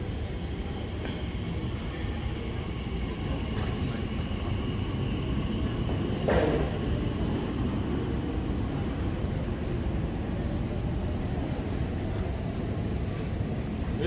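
Elizabeth line Class 345 train pulling out of an underground platform, a steady low rumble with a faint high whine. A single sharp knock comes about six seconds in.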